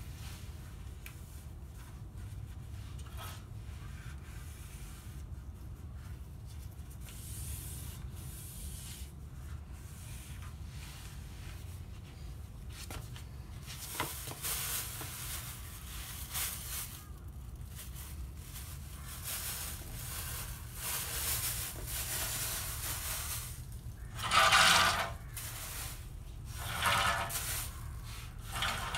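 Cloth rubbing and wiping over a screen door and its frame in repeated strokes, over a low steady hum. Two louder strokes come near the end.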